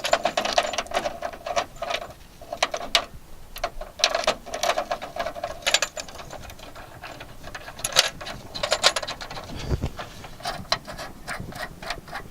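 Hand ratchet clicking in repeated bursts of rapid strokes, with a single dull knock near the end.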